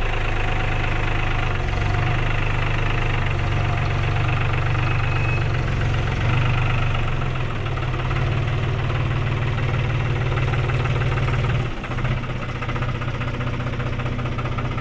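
Compact tractor's engine running steadily as it drives up carrying a load of boards on its front-loader forks, with a brief dip in the engine note about twelve seconds in.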